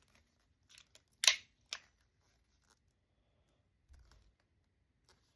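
Metallic clicks from a Taurus .38 Special revolver's action being worked dry, hammer and trigger snapping: a few light clicks, then one sharp loud click about a second in and a second click just after.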